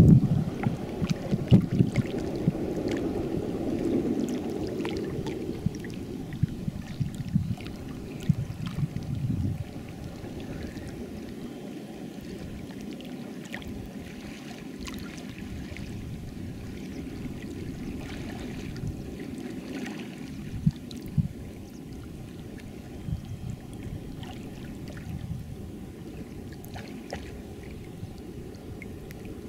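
Wind rumbling on the microphone over lapping, gurgling water. It is strongest in the first ten seconds, then settles to a lighter steady hiss with occasional small splashes.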